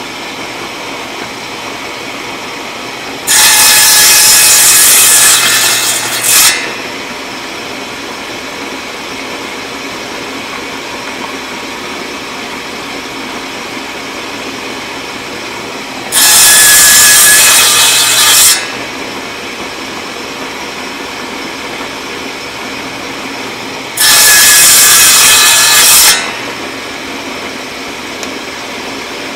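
Table saw running steadily and crosscutting 3/4-inch oak, with three louder cuts as the blade goes through the wood: about three seconds in, at about sixteen seconds and at about twenty-four seconds, each lasting two to three seconds.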